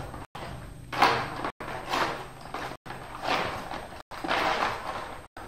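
Coloured pencil scratching on paper in a run of rough strokes, about one a second.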